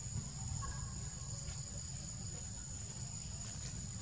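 Steady high-pitched insect drone over a low rumble, with a few faint short chirps in the first second and a half.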